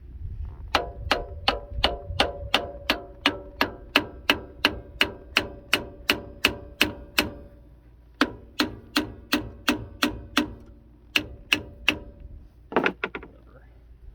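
Steady hammer blows on steel, about three a second, each one ringing, in a long run, then a shorter run and a few more strikes, with a brief rattle near the end: a part of a Dana 44 front axle being driven loose.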